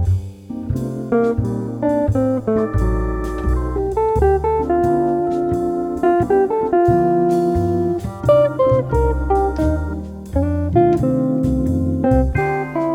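Background jazz music: plucked guitar melody over a walking bass.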